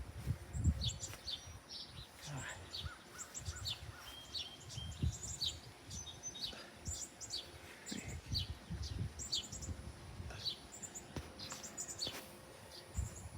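Small birds chirping outdoors, many short high calls scattered throughout, over repeated low thumps and rumble on the microphone.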